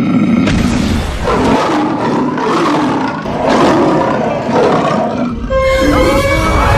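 Lion roaring repeatedly in rough, pitch-bending growls over background music; the roars give way to steadier tones about five and a half seconds in.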